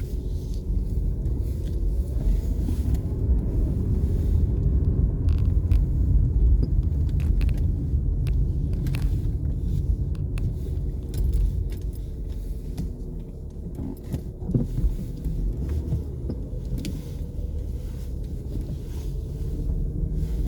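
Mercedes-Benz S-Class on the move: a steady low rumble of engine and road, with light clicks and rattles now and then.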